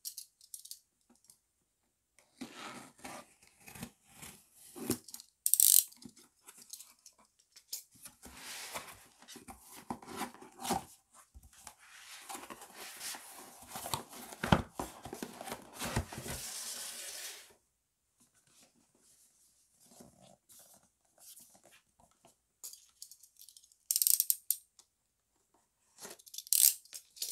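Cardboard parcel being opened: a utility knife slitting the packing tape, then cardboard flaps and a paper box scraping, rustling and clicking as they are handled, with a few short, sharp rips standing out as the loudest sounds.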